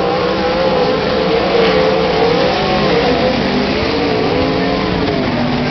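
A pack of 410 sprint cars racing on a dirt oval, several V8 engines running hard at once, their pitches rising and falling and crossing as the cars go by.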